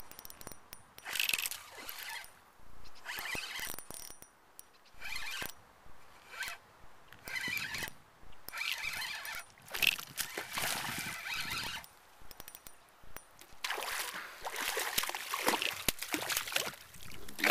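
Spinning fishing reel cranked in short, irregular bursts, a zipper-like whir, as a hooked fish is reeled in. In the last few seconds the fish splashes at the surface as it is brought to hand.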